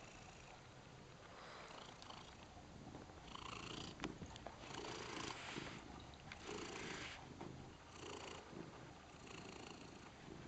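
Domestic cat purring close to the microphone, quiet at first and louder from about three seconds in, swelling and fading with each breath roughly once a second.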